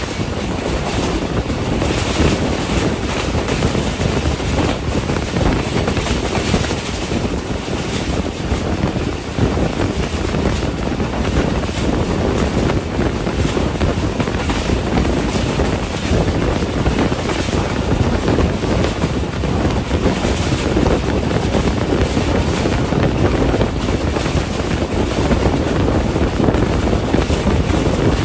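Passenger train running fast, heard from an open window: steady rumble of the carriage on the track with wind rushing over the microphone.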